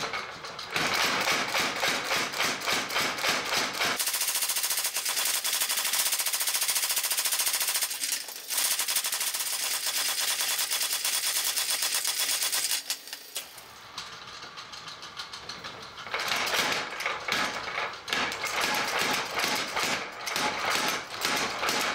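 Power hammer striking a red-hot 1¼-inch round steel rod in a fast, steady run of blows, drawing it out to forge a wagon brake lever. The blows break off briefly about eight seconds in, go quieter for a few seconds after about thirteen seconds, then pick up again.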